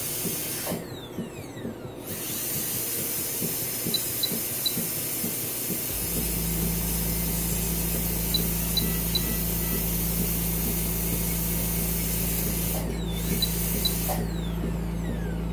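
High-speed dental handpiece with water spray running as a bur cuts into a cat's tooth affected by tooth resorption, a steady high hiss that stops briefly about a second in and again near the end. Short high electronic beeps come in threes every four to five seconds.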